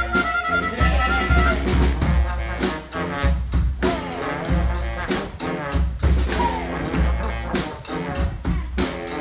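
Street brass band playing: trumpets and other horns over drums keeping a steady beat.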